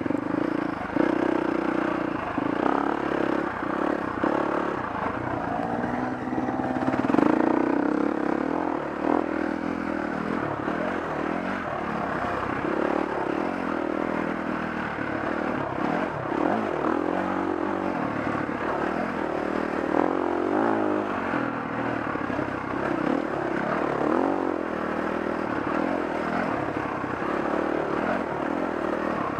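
Dirt bike engine running on a trail ride, its pitch rising and falling with the throttle, with a louder rev about seven seconds in.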